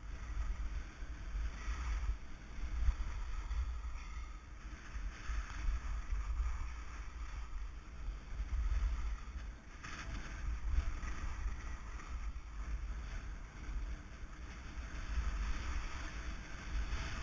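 Wind buffeting a helmet camera's microphone while skiing, with skis hissing and scraping over packed snow, swelling and fading every few seconds with the turns. One sharp knock comes about ten seconds in.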